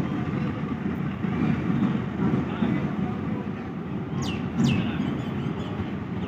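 GMCU-15 diesel locomotive's engine running as it pulls away, a steady low rumble, with two quick high chirps falling in pitch about four seconds in.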